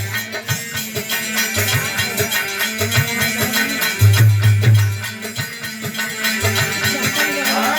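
Instrumental interlude of Indian folk music: drums and rattling percussion playing a steady beat under sustained melodic lines, with a deep booming low note that comes and goes.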